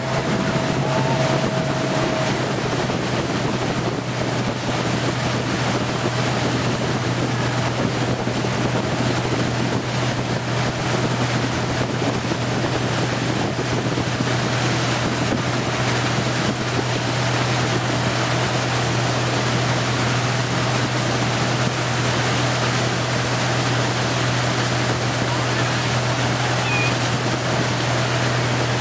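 Motorboat engine running steadily at speed with a constant low hum, under the rush of water from the wake and wind on the microphone.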